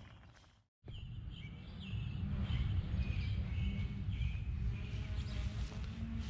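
Songbirds chirping in short repeated notes over a steady low rumble, after the sound drops out for a moment just before a second in.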